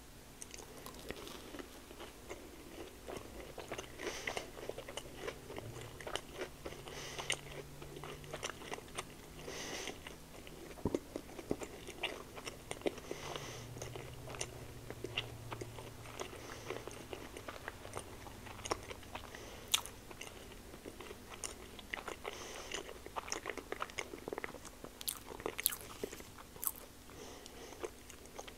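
A person chewing and biting a syrup-dipped, pancake-wrapped sausage on a stick, with many irregular wet mouth clicks.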